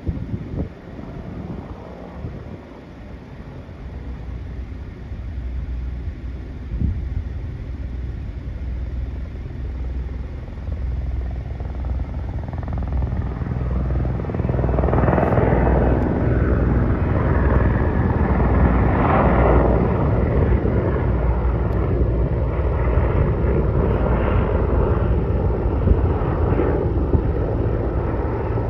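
Helicopter flying, a steady rotor-and-engine rumble that grows louder over the first half and stays at its loudest from about halfway in.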